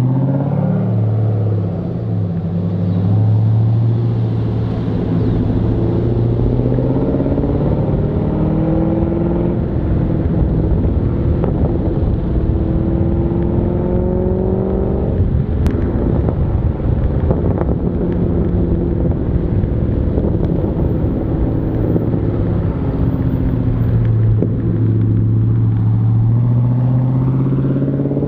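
Holden Commodore SS wagon's V8 running through a 2.5-inch X-Force mild-steel exhaust while driving. The exhaust note climbs steadily in pitch under acceleration and drops at a gear change about halfway, then climbs again.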